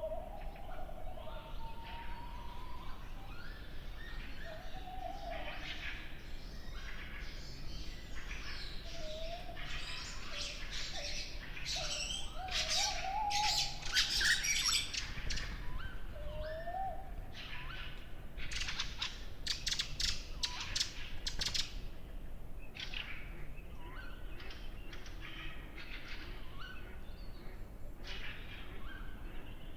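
Forest birdsong at dawn. A male tawny owl's wavering hoot trails off at the start, then fieldfares give loud runs of harsh chattering calls through the middle, thinning out toward the end, where a mallard joins in.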